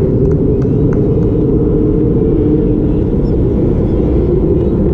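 Loud, steady low rumble of outdoor background noise, with a few faint clicks about a second in.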